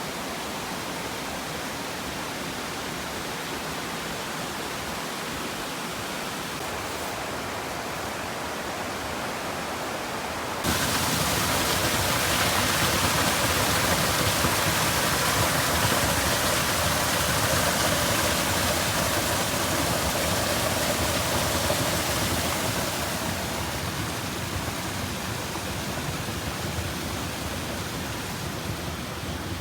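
Rushing water, a steady even roar that abruptly grows louder and fuller about a third of the way in, then eases off somewhat near the end.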